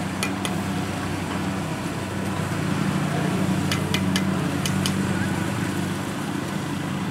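Kubota DC-70 Plus combine harvester's diesel engine running steadily under load as it harvests rice, with a few short sharp clicks over the hum.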